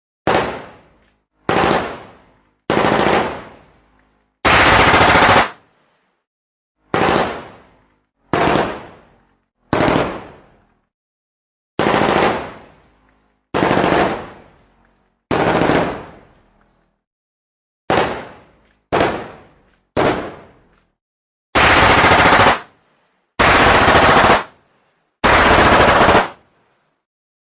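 Gunfire in short loud bursts, about sixteen of them, each half a second to a second long, separated by brief silences. Most bursts fade off in an echoing tail; a few stop abruptly.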